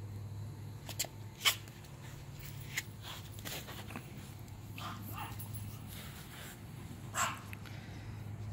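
A dog barking a few times in short, sharp calls: two about a second in, one near three seconds, and one near the end, over a steady low hum.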